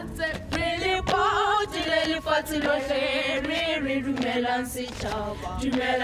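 A group of school students, boys and girls, singing together as a choir, with hand claps.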